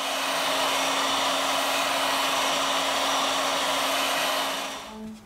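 Heat gun blowing hot air with a steady rush and a low hum, warming a smartphone's glued back cover to soften the adhesive; it dies away shortly before the end.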